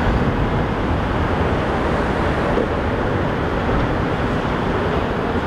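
Steady low rumble of road traffic and running vehicle engines.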